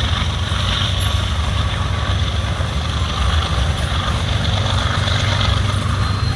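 Diesel freight locomotive engine running with a steady low drone, with an even hiss higher up.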